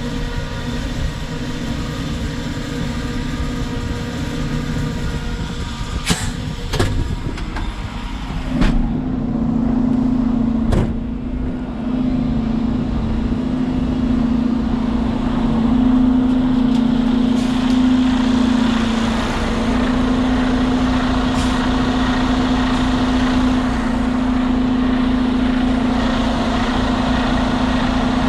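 Terex FD4000 front-discharge concrete mixer truck's diesel engine running steadily, with a few sharp clicks about six to eleven seconds in. From about eight and a half seconds a stronger steady drone sets in and holds.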